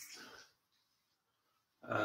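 Mostly near silence, broken by a short breathy noise from a man right at the start and the onset of a brief voiced sound from him near the end.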